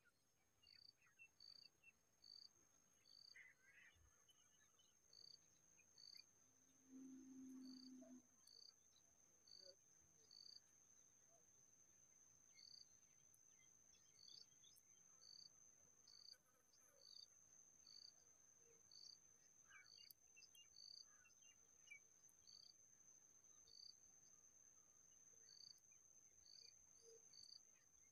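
Faint insect sound: a steady high-pitched trill, with short high chirps about a second apart and a brief low buzz around seven seconds in.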